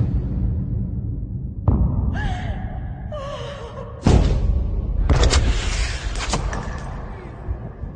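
Dramatic soundtrack music with a steady low drone, broken by two sudden heavy thuds about two and a half seconds apart, a wavering pitched sound between them, and a loud stretch of harsh noise with sharp cracks.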